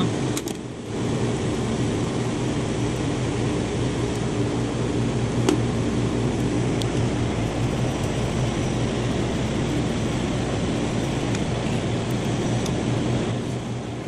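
Steady hum and fan noise of running rooftop HVAC machinery, with a few light clicks of a screwdriver working on a motor's wiring terminals.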